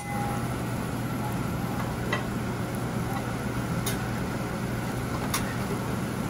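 Steady hum and hiss of a diner's griddle line, with a few sharp metallic clinks of a spatula on the flat-top griddle and plates about two, four and five and a half seconds in.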